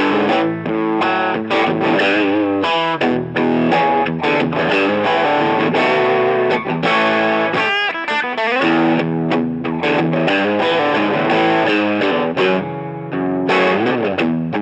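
Electric guitar, a Telecaster-style solid body, played with overdrive through the Echopark 1977 drive pedal: a run of picked notes and chords with string bends and vibrato.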